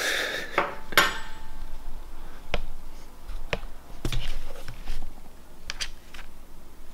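A ceramic plate and fork knocking and clinking on a wooden table as they are set down and handled: about six separate knocks, the loudest about a second in with a short ring.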